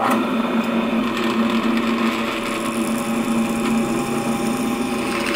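A drill motor starts abruptly and runs with a steady hum as a freshly ground four-facet twist drill bit is fed down into a metal plate to cut a test hole.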